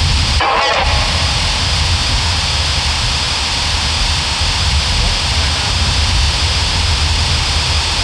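Spirit box app (GhostTube) putting out a steady wash of static hiss over a low rumble, with one brief chopped snatch of sound about half a second in.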